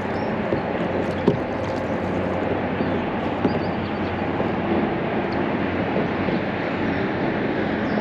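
Steady rumble of highway traffic crossing a bridge ahead, with a couple of light knocks.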